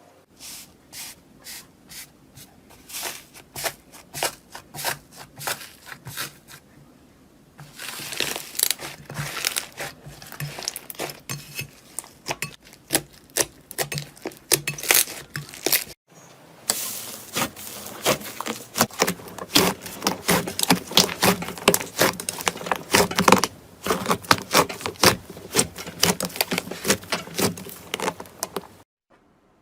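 Slime being pressed, poked and stretched by hand: a quick stream of sharp clicks and crackling pops, in three stretches with abrupt changes between them.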